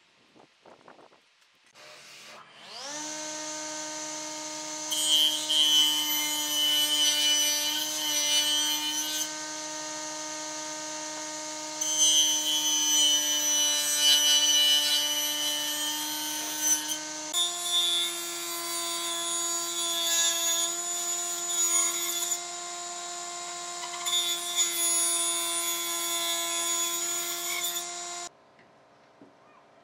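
Electric power tool spinning up to a steady whine and working wood in several stretches a few seconds long. Its pitch steps up about halfway through, and it shuts off near the end.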